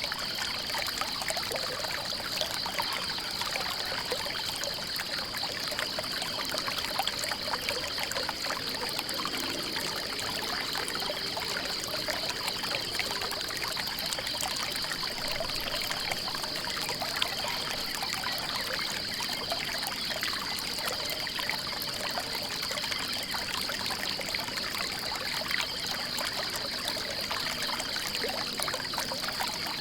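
Water trickling and running in a small stream, with a steady high-pitched pulsing trill over it throughout.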